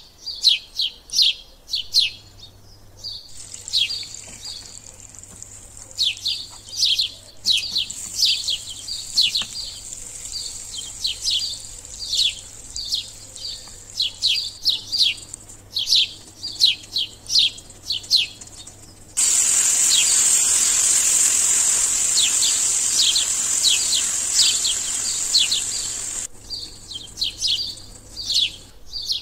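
A small bird chirping over and over: quick, short, falling chirps, several a second, in runs with brief breaks. A loud steady hiss joins it for about seven seconds in the second half.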